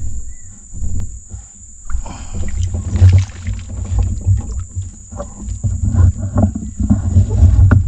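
Branches of a fallen tree rustling and crackling as they are grabbed and pulled from a small boat, over heavy irregular low rumbling that grows louder toward the end. A steady high-pitched insect drone runs underneath.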